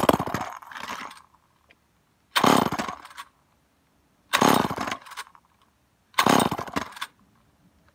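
Old two-stroke chainsaw being pull-started: four pulls of the recoil starter about two seconds apart, each a second-long whirr of the cord turning the engine over. It does not catch, and there is silence between pulls. The saw has not been run in four or five years.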